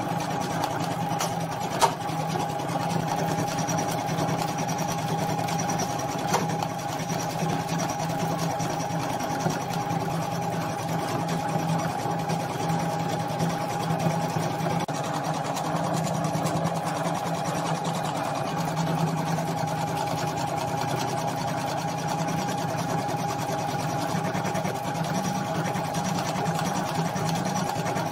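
Usha Janome Memory Craft 450E computerized embroidery machine stitching a design at its set speed of 400 stitches a minute. It gives a steady mechanical hum with a constant tone, broken by a few sharp clicks.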